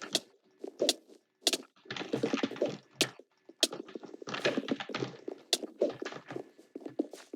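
Typing on a computer keyboard: uneven runs of keystrokes broken by short pauses, with a few sharper single key clicks standing out.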